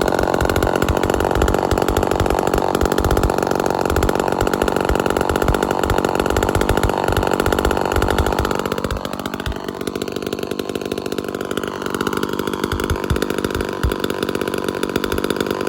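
Vintage Lombard chainsaw engine running at high throttle, its speed dropping about nine seconds in and holding lower. The saw runs very rich when the trigger is pulled and then leans out, which the owner puts down to the carburetor.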